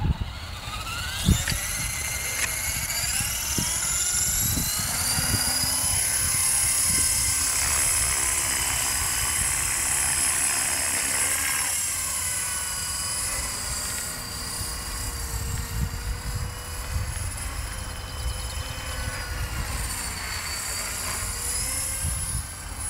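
Align 450-class electric RC helicopter spooling up, its motor and rotor whine rising steadily in pitch over the first few seconds. It then holds a high whine in flight that wavers up and down in pitch. There is one sharp knock about a second in.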